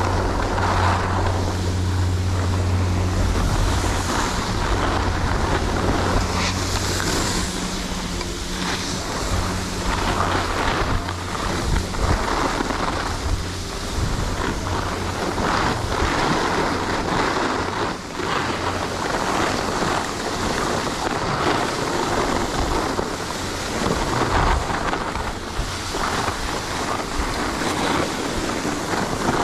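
Skis scraping and hissing over packed snow through a run of turns, swelling every couple of seconds, with wind rushing over the microphone. A low steady hum runs underneath for the first several seconds and then fades out.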